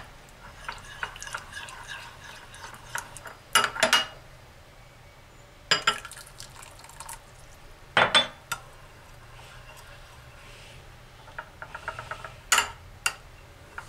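Metal spoon stirring tomato paste in a small porcelain bowl: light scraping and tapping, with a handful of sharp clinks against the bowl's rim. Hot water is poured in from a glass partway through to thin the paste into a sauce.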